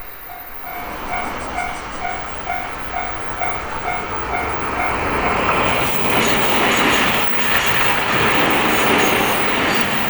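Railway level-crossing warning bell ringing about twice a second. About five seconds in, a passing train builds up and drowns it out, its wheels clacking rhythmically over the rail joints.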